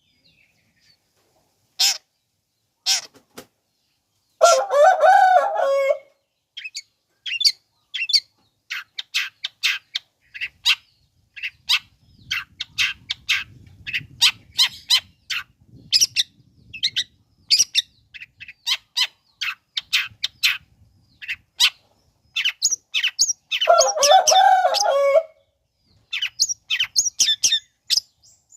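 Long-tailed shrike (cendet) calling: a rapid series of short, sharp chips and whistles, broken twice by a harsh, grating burst of about two seconds, once a few seconds in and again near the end.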